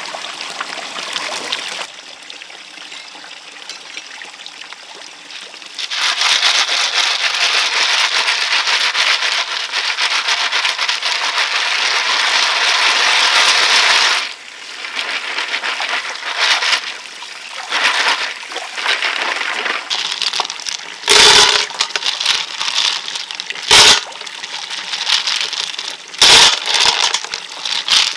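Water running or pouring hard for about eight seconds, then a series of sharp knocks and cracks.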